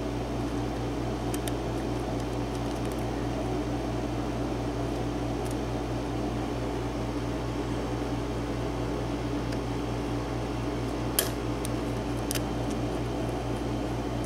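Small air conditioner running with a steady hum, with a few sharp clicks from a lock pick and tension wrench working the pins of a pin-tumbler cylinder lock. The sharpest click comes about eleven seconds in.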